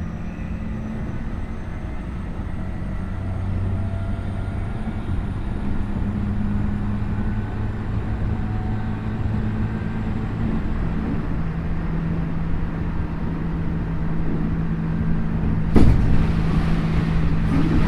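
Tokyu 5050 series electric train running, heard inside at the car end: steady wheel and motor rumble, with a faint high whine gliding upward early on from the Hitachi IGBT inverter. A sharp knock comes about 16 seconds in, after which the running gets louder and rougher.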